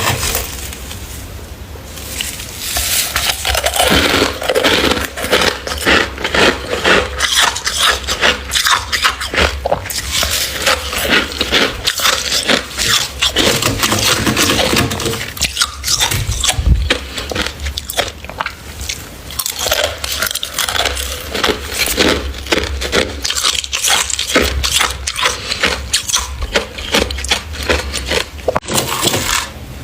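Crunchy freezer frost being eaten close to the microphone: a dense, irregular run of crisp crunches and crackles, with a brief lull about a second in.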